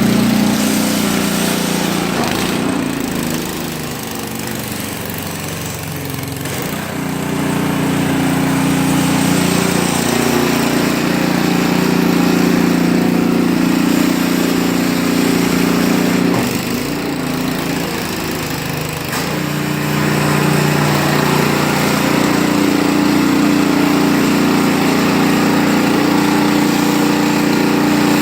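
Snowblower's small gasoline engine running steadily, with its note and level dipping briefly about four seconds in and again around seventeen seconds.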